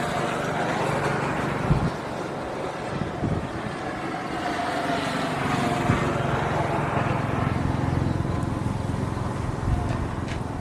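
An engine running steadily, with a few brief knocks.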